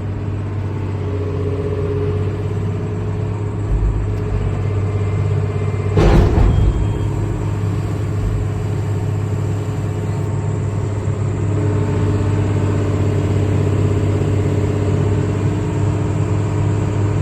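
Doosan DX300LCA excavator's diesel engine running steadily while the freshly repaired hydraulic system is worked, with higher steady tones coming and going as the controls are moved. A single sharp clank about six seconds in.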